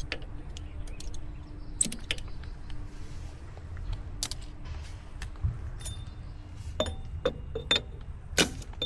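Irregular light metal taps and clinks, several in the second half ringing briefly: a seal-driving tool tapping the new motor shaft seal into place on a Denis Cimaf 180D mulcher head.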